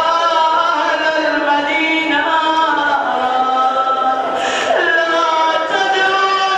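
Melodic vocal chanting in long held notes that glide slowly up and down, in the manner of a Shia mourning recitation at a majlis.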